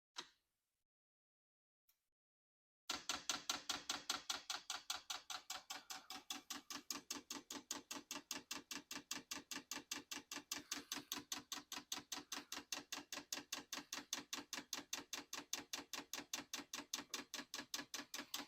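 Diesel air heater's electric fuel dosing pump clicking rapidly and evenly, about five or six ticks a second, starting about three seconds in: the pump is being run manually to prime the fuel line.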